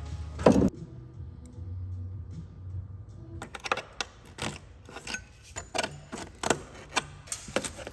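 A flat steel blade prying and scraping at a cut flap of rusted underbody sheet metal on a 1972 Toyota Corolla, giving irregular sharp metallic clicks and scrapes, one or two a second, from about three and a half seconds in. A single loud clack comes about half a second in.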